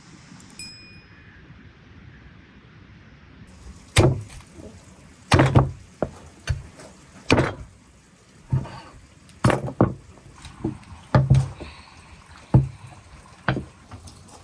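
Heavy meat cleaver chopping into a raw lamb leg on a thick wooden cutting board. More than a dozen sharp chops with a thud, irregularly spaced, start about four seconds in. Before them comes a short bell-like chime, then faint rain hiss.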